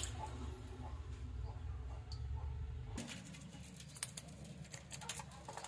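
Water sloshing as a hand stirs live fish in a plastic tub, over a low steady rumble. After a cut about three seconds in, a live fish flops on wet concrete, making irregular small wet slaps and clicks.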